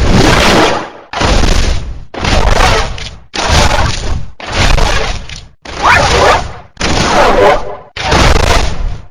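A run of about nine designed creature sound effects for a fictional giant bird, played one after another, each about a second long with a short gap between. The sounds are loud and noisy, with crash-like hits, and several carry a bending screech.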